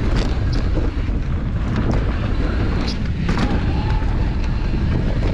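Wind buffeting the microphone while riding a mountain bike fast down a dirt trail, with the tyres rolling over the ground and scattered clicks and knocks from the bike rattling over bumps.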